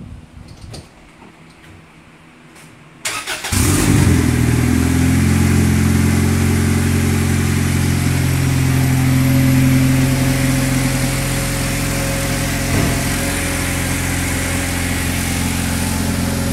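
A few faint clicks, then about three seconds in the turbocharged Honda Accord's engine cranks briefly, catches and settles into a steady idle. It is the first start after a clutch and rear main seal replacement.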